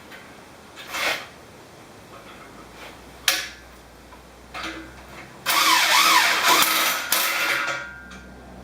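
A handheld power tool runs for about two seconds, its motor pitch wavering up and down, driving the bolts that hold the bench grinders to the stand; a couple of sharp knocks come before it.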